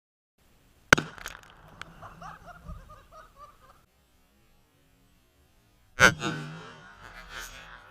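A sharp knock, then faint voices with what may be laughter; a second sharp knock comes about six seconds in.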